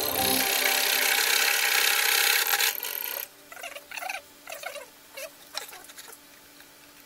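Scroll saw running and cutting thin wood, a steady hiss that stops about three seconds in. Then short rubbing and scraping sounds of wood pieces being handled on the metal saw table.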